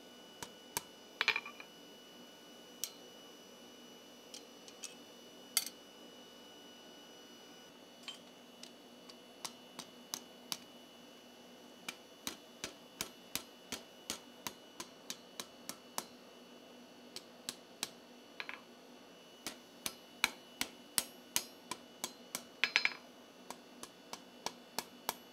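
Hand hammer striking a hot steel bar on an anvil with sharp ringing blows, rolling the bar's end into a tight scroll. The blows come scattered and spaced at first, then settle into a steady run of about two a second from about halfway.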